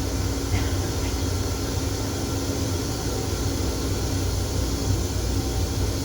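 Steady interior noise of an MTA Metro-North M7 electric railcar: a low rumble with a ventilation hiss and a faint steady hum.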